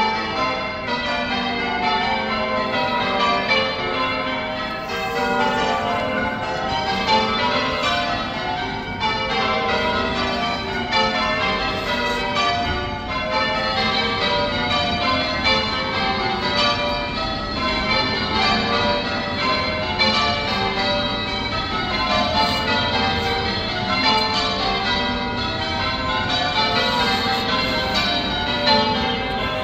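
A ring of church tower bells pealing, struck one after another in rapid, unbroken cascades. The order of the bells keeps shifting, so the run of notes criss-crosses up and down the scale.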